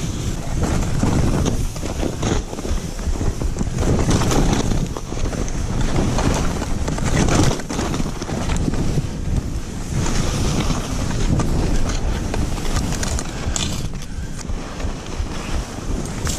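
Skis hissing and scraping through snow on a fast downhill run, swelling and fading in uneven surges, with wind rumbling on the microphone.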